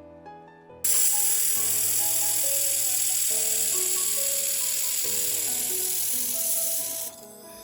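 Steady hiss from a handheld fiber laser welding gun in use. It starts suddenly about a second in and cuts off near the end, with background piano music underneath.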